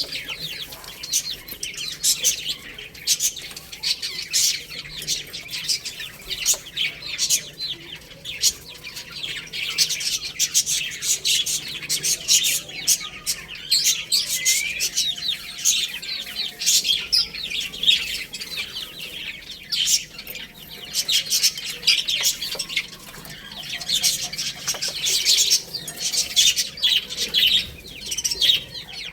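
Baby chicks chirping, many short high peeps overlapping without a break.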